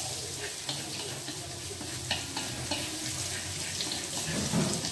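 Chopped garlic frying in a wok with a steady sizzle, stirred with wooden chopsticks that tick against the pan now and then. The garlic is being fried until golden.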